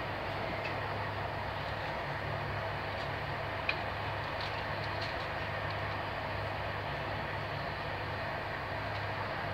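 Steady rolling noise of wheels on rail heard inside a Corail passenger coach running at speed, with a low hum underneath. One short sharp click a little under four seconds in.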